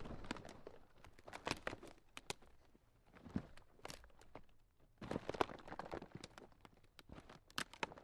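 Ground cracking: irregular crackles and snaps that come in uneven clusters, with short quieter gaps about three and five seconds in.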